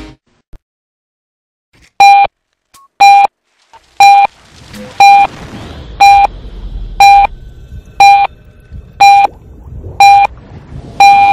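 Countdown sound effect: ten short electronic beeps, one a second, the last a little longer, over a low rumble that builds from about a third of the way in.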